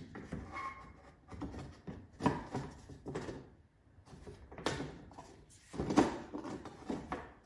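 Plywood panels knocking and scraping against each other as a slotted back wall is worked down over hooks and tabs: a handful of short wooden knocks with rubbing between them, the loudest about six seconds in.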